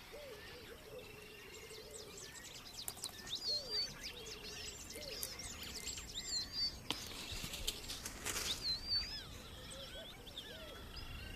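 Wild birds chirping and calling over a faint steady hiss: many short, high whistled chirps and slides, with some lower wavering calls in the first few seconds.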